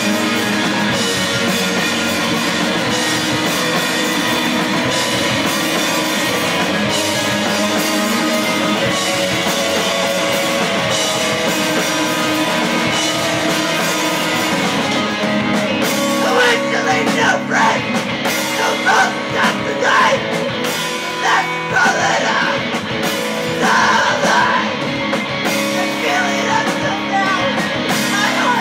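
Live rock band of electric guitar, bass guitar and drum kit playing, heard from the crowd. A singing voice comes in over the band a little past halfway.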